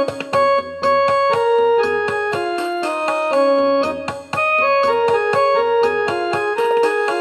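Background piano music playing Raag Bhupali: a melody of held notes, one after another.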